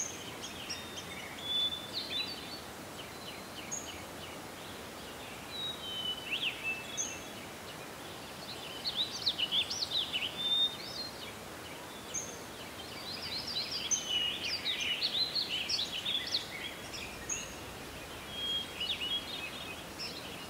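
Several small birds chirping and whistling in quick, irregular bursts over a steady hiss of outdoor ambience, with the busiest spells about a third and two-thirds of the way through.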